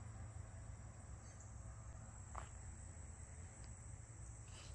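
Faint, steady high-pitched chorus of insects in summer grass, over a low background rumble.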